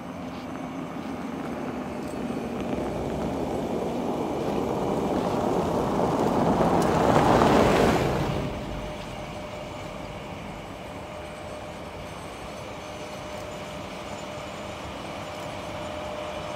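A 3ES5K Ermak electric locomotive hauling a freight train approaches with a steady hum. A loud rushing noise builds over the first seven seconds and drops away suddenly about eight seconds in.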